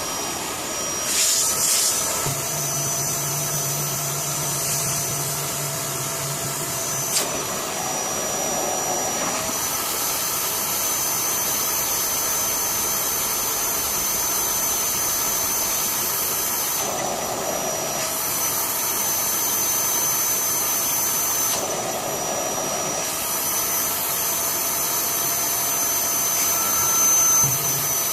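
Vacuum cleaner switched on and running steadily, sucking water and debris out of a blocked split-system air conditioner's drain hose; its high whine shifts in pitch several times as the suction load changes. There is one brief tap about seven seconds in.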